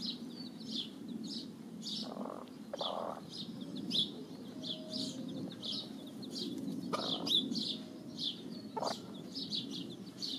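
Chickens: a hen giving a few soft clucks while chicks peep in rapid, high, short chirps throughout, over a steady low background hum.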